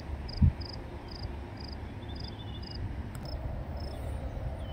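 Insect chirping in a steady high rhythm, about two short chirps a second, over a low background rumble. A single thump about half a second in.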